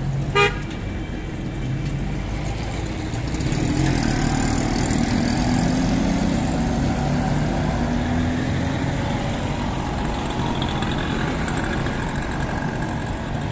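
Street traffic with vehicle engines running. There is one short horn beep about half a second in, and the engine noise grows louder from about four seconds in.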